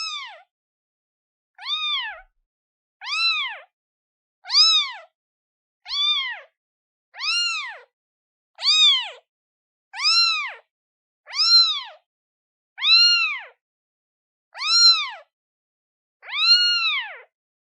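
Newborn kitten, a day old, meowing over and over for its mother: about a dozen short, high calls, each rising then falling in pitch, one roughly every second and a half with silence between.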